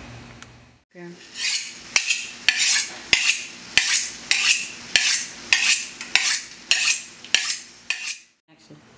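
A kitchen knife being honed on a steel rod: about a dozen quick metal-on-metal scraping strokes, a little under two a second, each opening with a sharp click.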